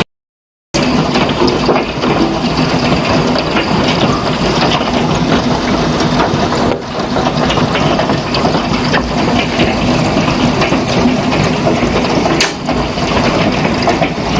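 Hail and heavy rain pelting down: a dense, steady hiss full of sharp ticks from stones striking. The sound drops out completely for under a second at the start.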